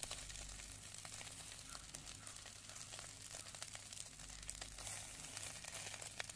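Faint crackling and sizzling from a covered clay pot heaped with glowing charcoal over a wood fire, sardines cooking in oil inside, with a scatter of small ticks over a steady hiss.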